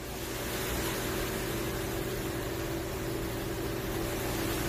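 Steady machinery hum with an even hiss, stepping up slightly at the start and then holding level.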